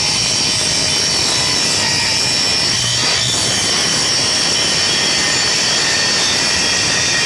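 Electric power tool running steadily at full speed, a constant loud rushing noise with a high whine.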